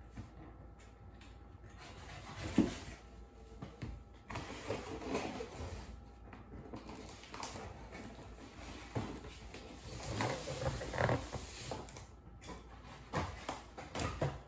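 Utility knife slicing through the packing tape and cardboard of a fan box, in a run of irregular rasping scrapes and small clicks, with a sharp click about two and a half seconds in and the cardboard rustling as it is handled.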